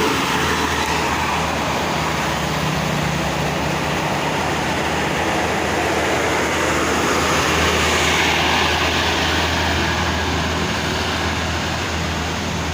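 A medium-size bus's diesel engine running close by as the bus goes past, with road traffic noise; the sound swells about eight seconds in.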